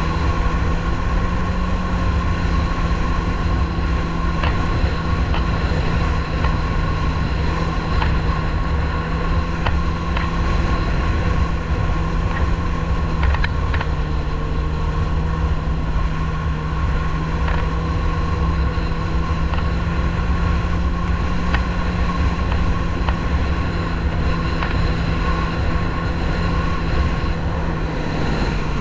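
Yamaha marine engine of a small boat running steadily under way, with water rushing past the hull. The engine note shifts slightly in pitch about a second in and again about halfway through.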